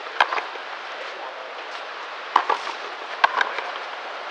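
Frontenis rally: the rubber ball cracking off rackets and the fronton wall, three loud sharp hits about a second or two apart with lighter knocks between.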